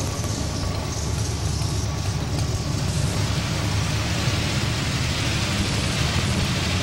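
Modified 4x4 pulling truck's engine idling steadily, over the noise of the arena.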